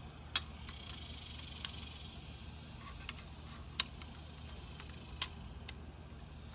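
Scattered sharp metal clicks and taps, about half a dozen, as the half of an aluminium two-piece drop-in quad-rail handguard is worked into place on an AR-15 against the tight handguard spring, by hand without the installation tool.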